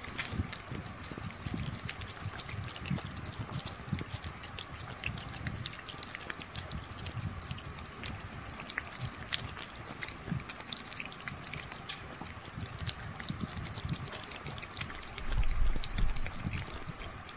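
Two kittens licking and lapping at a chocolate-coated ice cream bar: a fast, irregular run of small wet smacking clicks. A brief louder low thump comes about fifteen seconds in.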